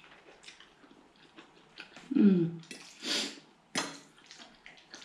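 Close-up eating sounds of someone eating linguine: wet chewing and mouth clicks, a short hummed "mm" about two seconds in, a breathy slurp about a second later, and a sharp click just before four seconds.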